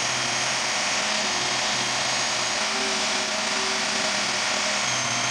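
Drill press running steadily while drilling pin holes through knife handle scales, a continuous motor and drilling noise with a faint hum that wavers slightly with the load.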